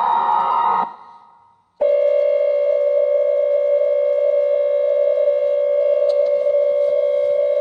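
Emergency Alert System tones: the last burst of a SAME header ends about a second in and fades out with an echo. About two seconds in, a loud, steady EAS attention tone starts and holds unchanged.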